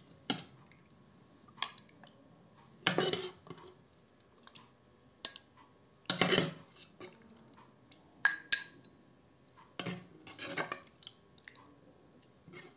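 Ladle knocking and scraping in a pressure cooker and clinking against a ceramic bowl as stew is served, about a dozen separate knocks and clinks, some ringing briefly.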